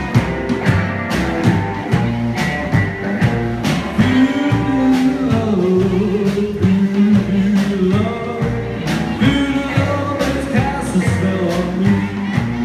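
Live rockabilly band playing: a Gretsch hollow-body electric guitar, an upright double bass and a drum kit keeping a steady beat, with a man singing.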